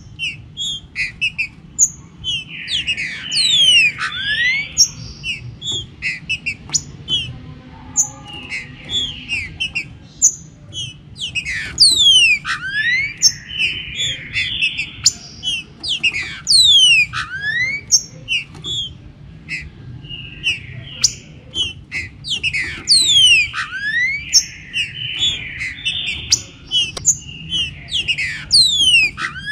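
Green-winged saltators (trinca-ferro) singing: repeated phrases of clear whistles that slide down in pitch, mixed with buzzy notes, over a steady low hum.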